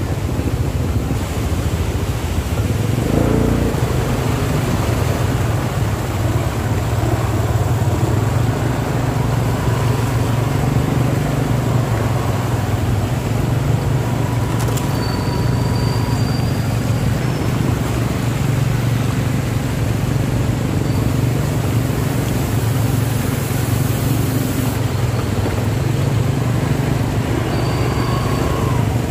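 Slow traffic through a flooded street: car and motorcycle engines running in a steady low drone.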